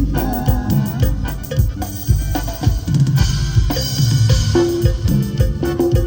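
Live dance band playing, with the drum kit loud in the mix: steady kick and snare hits over bass and a keyboard line.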